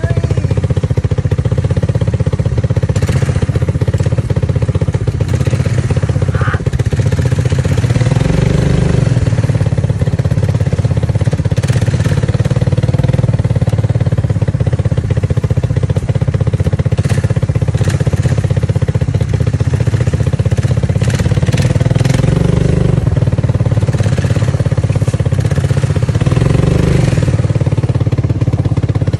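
ATV engine running steadily under load as the quad sits stuck in muddy creek water, revved up three times as it tries to climb the bank.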